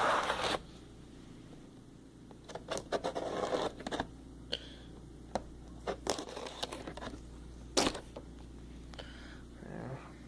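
A Gerber pocket knife cutting into the plastic shrink-wrap of a fireworks pack, with the wrap crinkling and scraping in scratchy bursts and a few sharp clicks. A louder knock comes about eight seconds in.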